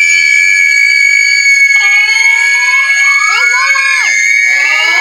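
A continuous, very loud, steady high-pitched tone, with shrill screams layered over it from about two seconds in, each rising then falling in pitch, several overlapping, and another group starting near the end.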